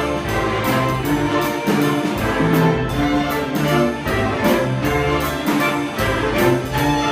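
School string orchestra playing a Christmas concert piece, with notes changing in a steady rhythm over lower held notes.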